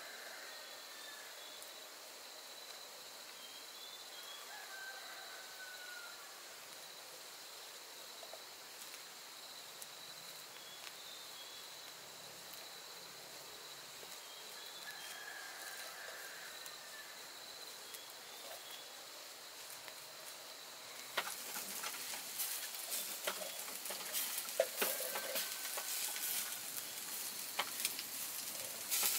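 Insects droning steadily, with a few short bird chirps. About three-quarters of the way through, a dense crackling sizzle starts suddenly and becomes the loudest sound.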